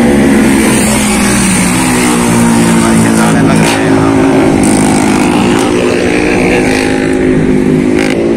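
Motorcycle engine running close by. Its pitch sinks slowly, then rises a little, with no hard revving.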